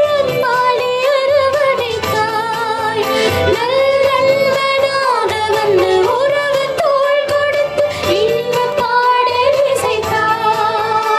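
A hymn sung by a high voice with instrumental accompaniment: a melody of long, bending notes that runs on without a break.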